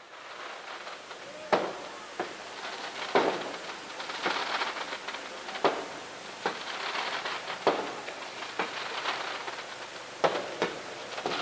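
Firecrackers going off: a continuous crackle with irregular sharp bangs every second or two.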